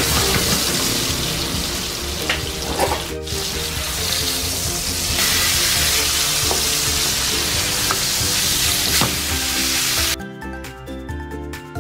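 Salmon steaks sizzling in hot olive oil and butter in a frying pan, with a few light clicks of a plastic spatula as the steaks are turned. The sizzle cuts off suddenly near the end, leaving background music.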